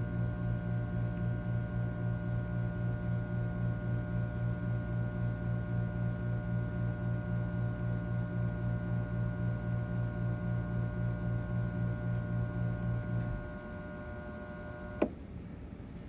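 Breville Bambino Plus espresso machine making a low buzzing hum after pulling a shot, steady until it stops about thirteen seconds in. A single sharp click follows a couple of seconds later.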